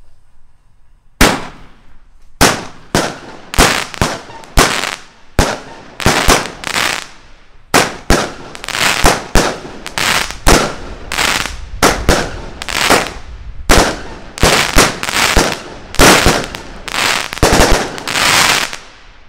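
A 16-shot firework cake ('Desert At Night', Fireworks Specials) firing: a fast series of sharp launch thumps and aerial bursts starts about a second in and stops just before the end.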